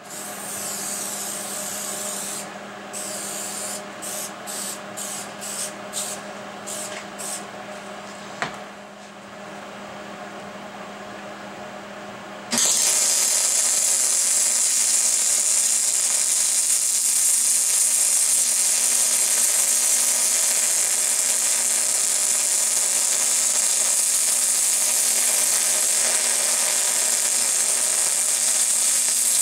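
MIG welder humming steadily, with several short hissing bursts. About twelve seconds in the arc strikes, and the loud, steady crackling hiss of MIG welding runs on as a plug weld is laid into a steel brake bracket.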